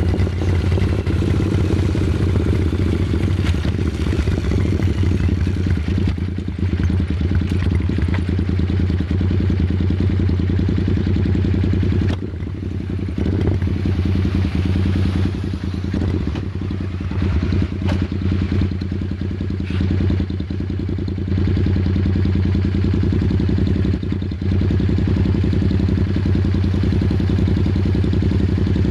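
Royal Enfield Super Meteor 650's parallel-twin engine running steadily, dipping briefly in level a few times.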